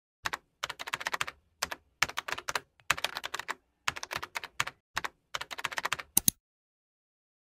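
Computer keyboard typing sound effect: quick keystroke clicks in short runs with brief pauses between them, stopping about six seconds in.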